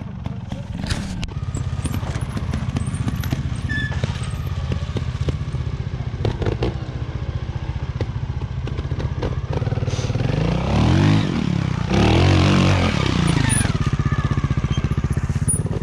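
Trials motorcycle engine ticking over with a fast, even beat, revved up and back down in two short bursts about ten and twelve seconds in.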